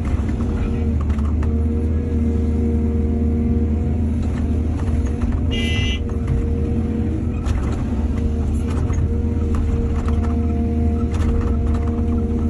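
Excavator's diesel engine running steadily, with scattered knocks and clanks from the work and a brief high squeal about six seconds in.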